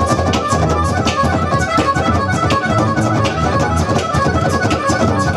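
Live amplified harmonica played cupped against a handheld microphone over electric guitar, with a steady rhythm.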